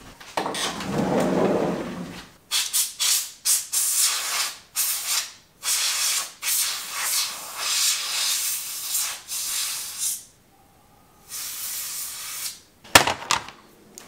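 Canned compressed air sprayed in a string of short hissing bursts, blowing dirt out of an original iMac keyboard with its keycaps removed. After a brief pause comes one last longer burst, then a few clicks near the end.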